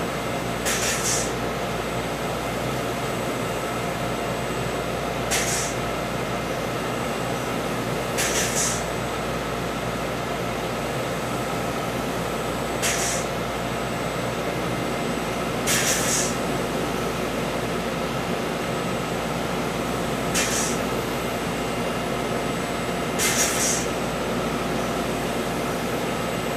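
Nanospider needle-free electrospinning machine running: a steady machine hum and rush of air, broken seven times by a short burst of high hiss, a few seconds apart at irregular intervals.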